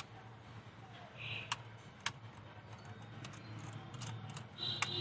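Scattered sharp little clicks and taps of plastic parts and a small tool as a Sony Handycam camcorder's casing is worked open.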